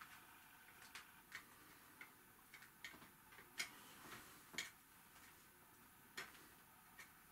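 Faint, irregular clicks and taps of hard plastic being handled, about ten in all, as fingers work at a small plastic piece stuck on a toy figure's foot.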